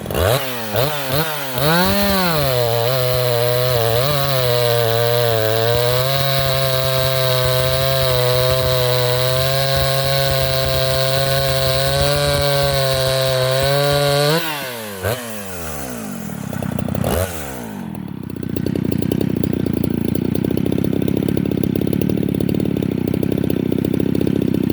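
Two-stroke chainsaw fitted with a round-filed Oregon CL chain: the engine is blipped a few times, then held at high revs with a slight sag for about twelve seconds, as when the chain is cutting wood. The throttle is then released, with one more short blip, and the engine drops to a lower, rougher running sound.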